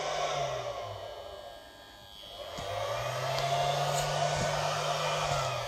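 MPPT solar charge controller humming: a steady electrical hum that fades after about half a second, then swells back up from about two and a half seconds in. The hum is the sign of solar power coming in, rising and falling with the current from the panels.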